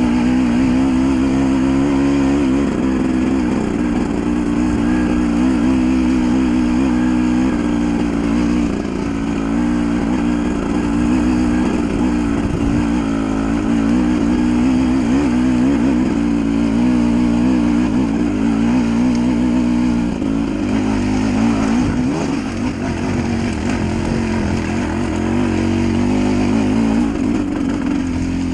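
Dirt bike engine running as the bike is ridden off-road, its pitch rising and falling with the throttle, easing off briefly about three-quarters of the way through.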